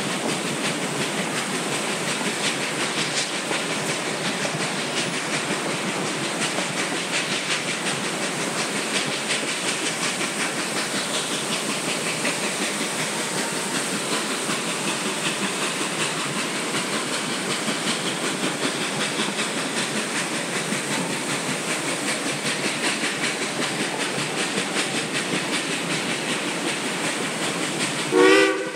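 Narrow gauge steam train under way, heard from aboard: a steady rush of wheels clattering on the rails mixed with steam hiss. Near the very end the locomotive's whistle starts to blow.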